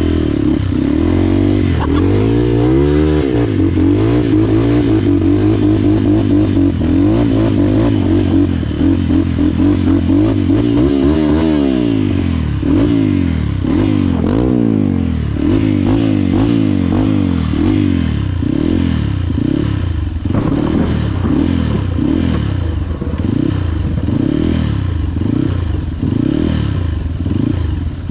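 Trail motorcycle engine running under load, its revs rising and falling over and over as the throttle is worked, with some rattling and clatter.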